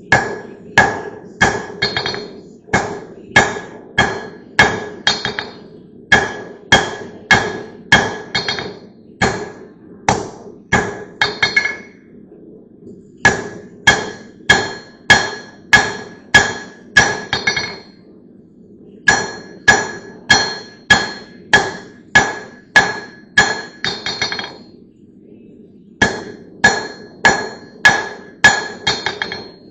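Blacksmith's hammer striking steel in steady runs of blows, about two a second, each with a metallic ring. The hammering stops for a second or so three times.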